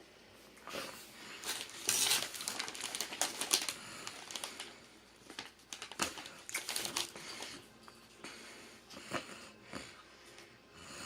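Crunchy chips being bitten and chewed: irregular runs of crackling crunches, busiest in the first half and thinning out toward the end.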